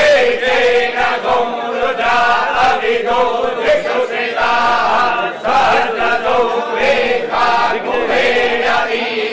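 A group of men's voices chanting mantras together in one continuous chant that does not pause.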